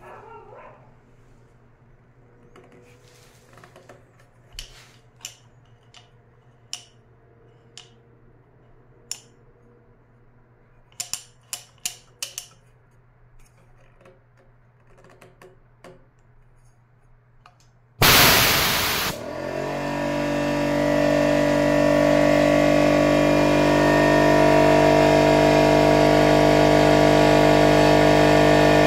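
Scattered light clicks and taps, then about 18 seconds in a Metabo HPT EC914S air compressor starts with a loud burst of noise and runs steadily, its motor and pump building up.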